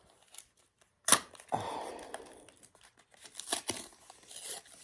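Foil wrapper of a Pokémon card booster pack being torn open: a sharp snap about a second in, a ripping tear right after, then crinkling as the wrapper is handled.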